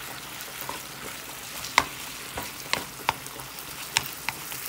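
Ground beef sizzling in a non-stick frying pan as a wooden spoon stirs and breaks it up. There are several sharp knocks of the spoon against the pan, the loudest about two seconds in.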